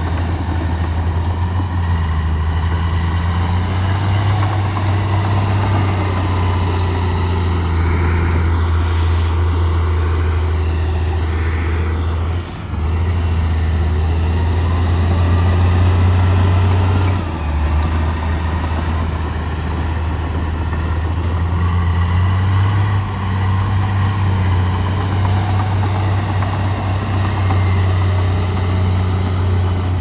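Heavy diesel engine of a Shantui crawler bulldozer running steadily under load as it pushes soil. It is a deep, even drone that dips briefly about twelve seconds in and changes tone a few seconds later.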